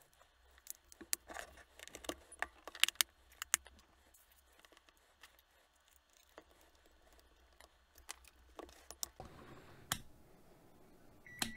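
Light plastic clicks and knocks of AA batteries being pressed into a multimeter's battery holder and the plastic case being handled, then a few clicks from the rotary selector dial being turned. Near the end a short high beep as the multimeter switches on.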